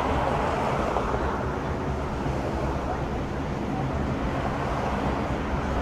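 Steady traffic noise from a busy city street, with vehicle engines and tyres making a continuous rumble.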